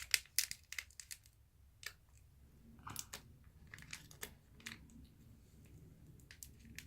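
Scattered light clicks and crinkles of a small plastic glitter container being handled and opened, several quick ones about a second in and more around the middle.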